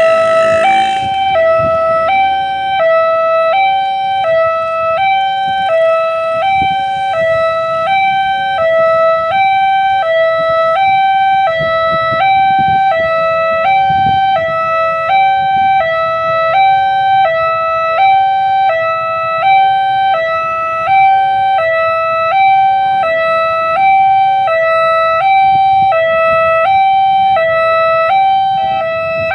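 Railway level-crossing warning siren sounding its electronic tone, stepping through three pitches in a cycle that repeats about once a second, the signal that a train is approaching. Road traffic is faint underneath.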